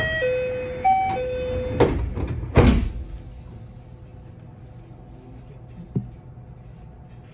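JR West 227 series train's door-closing chime, a two-note chime sounding twice, followed by two thuds as the sliding doors shut, the second the loudest, with a brief hiss. A steady low rumble of the stopped train follows.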